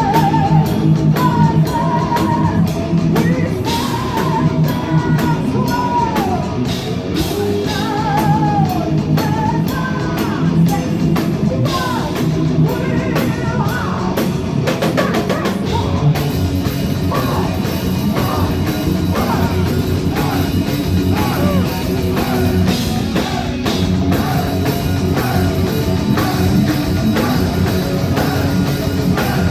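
Heavy metal band playing live: a woman's sung lead vocal over distorted electric guitars, bass and a drum kit. The singing is clearest in the first half, and the instruments fill out more after about halfway.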